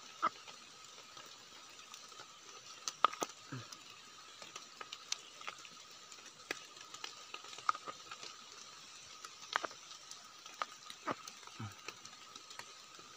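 Hands picking wild mushrooms from soil: scattered small snaps and clicks of stems breaking and caps being handled, with a few soft thuds and scrapes of earth. A faint steady high tone runs in the background.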